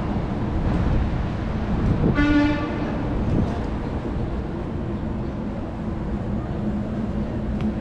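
Steady city street noise with one short horn honk, a single flat tone lasting about half a second, a couple of seconds in.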